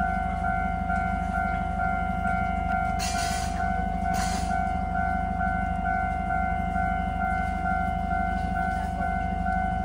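Railway level-crossing warning bell ringing in a steady repeating pattern, about two and a half strokes a second, over a steady low rumble. Two short hisses come about 3 and 4 seconds in.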